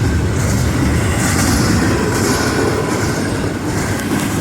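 Norfolk Southern intermodal freight train passing at speed: a steady, loud rumble of wheels and cars on the rails.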